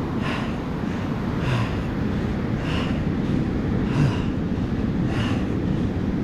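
A man panting hard after paddling a kayak out through big surf, with quick heavy breaths about once a second, over a steady low rush of wind on the microphone and surf.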